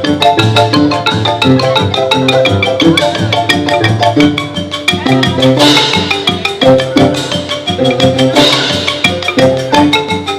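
Xylophone-led music: many quick struck notes over a low bass line. Twice in the second half a brief noisy splash sounds over it.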